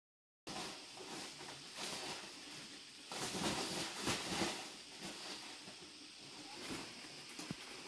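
Rustling and crinkling of an orange woven plastic sack being rummaged through by hand, with irregular crackles that are busiest and loudest in the middle.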